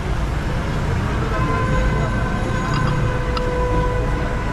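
Steady low rumble of street traffic. A steady pitched tone is held for about three seconds from a second in.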